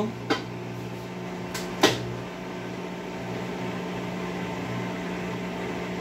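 Whirlpool top-load washing machine's drain pump running with a steady hum as the machine drains during its recalibration cycle. Two short clicks sound, one just after the start and a louder one about two seconds in.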